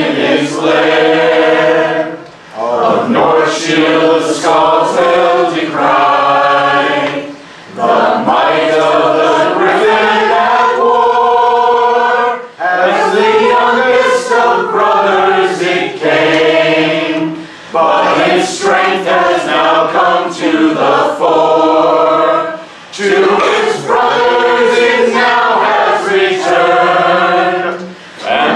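A man leading a small group in unaccompanied singing of a ballad, many voices together. The sung lines are broken by short pauses for breath about every five seconds.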